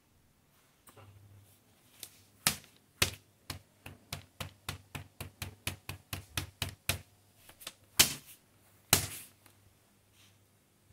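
A run of sharp taps and clicks, about three or four a second through the middle, then two louder knocks near the end.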